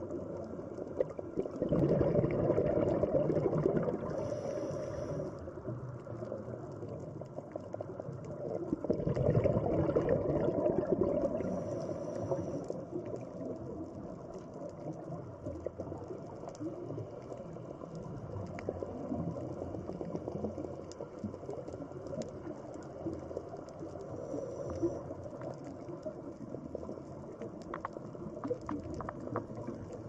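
Scuba regulator exhalation heard underwater: two long bursts of rising bubbles, each about three seconds, about two and nine seconds in. Between them a low, steady underwater hiss with faint scattered clicks.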